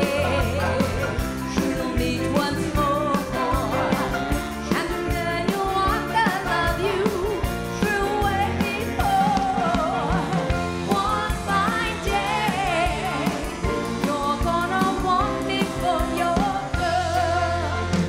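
Live rock-and-roll band playing with a woman singing lead: her wavering vocal melody over drums, electric guitar and keyboards.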